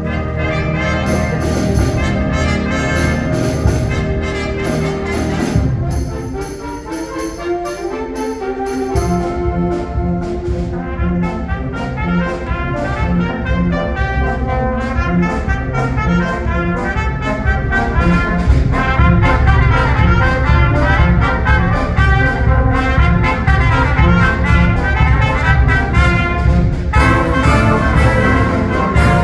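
High school concert band playing, woodwinds and brass with percussion. About six seconds in the low instruments drop out for a thinner, quieter passage, then the full band comes back in and builds louder.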